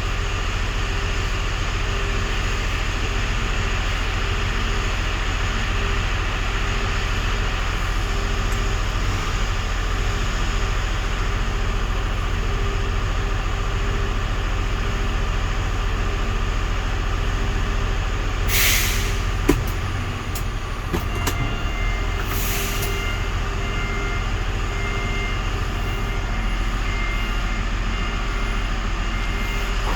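Mega Truck's diesel engine idling steadily, with the transmission oil-cooler fan running now that its relay has been replaced. About two-thirds of the way through come two short hisses of compressed air a few seconds apart, with a sharp knock between them.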